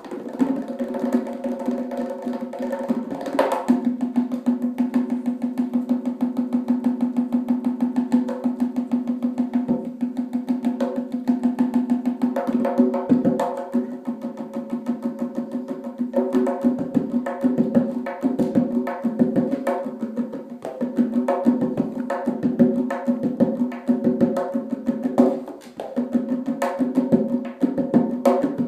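Tonbak (Persian goblet drum) played solo: fast, dense rolls of finger strokes with sharper accented strikes, the drumhead ringing at a steady low pitch.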